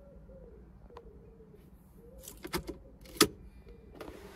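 Pigeon cooing in the background, over a low steady hum. A few sharp clicks and knocks sound about two and a half seconds in, and the loudest, a single sharp click, comes just after three seconds.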